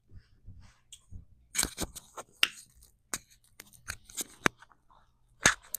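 Irregular close-up clicks, taps and short scrapes of objects being handled, some in quick clusters.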